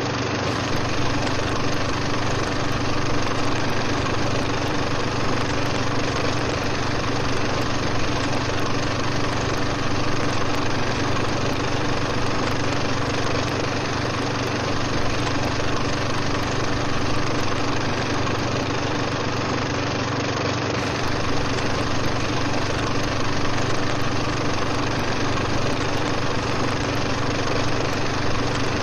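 A steady, unchanging mechanical drone: a low hum under a wash of hiss, with no breaks or rhythm.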